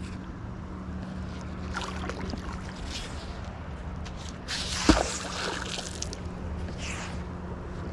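Water sloshing and splashing as a fishing magnet is worked in the water, with one sharp knock about five seconds in, over a steady low background.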